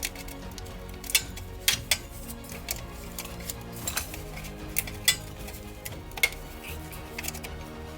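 Metal tools and parts clinking and clicking sharply at irregular moments during car drivetrain reassembly, over background music.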